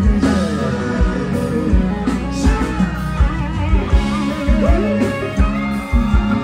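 Live forró band music, with an electric guitar playing a lead line full of bends over bass and a steady kick-drum beat.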